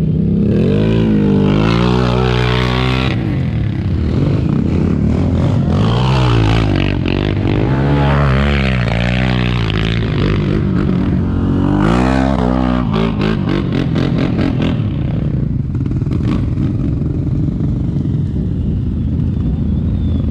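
Quad (ATV) engines revving hard in three bursts, the pitch climbing and dropping each time, with a steady engine drone between.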